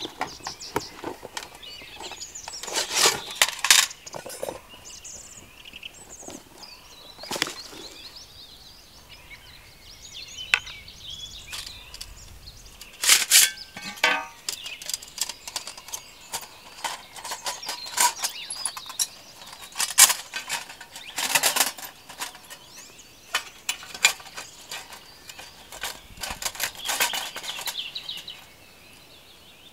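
Metal plates of a folding twig stove clicking and clinking as they are drawn from a leather pouch and slotted together, with rustling of the pouch and handling in between.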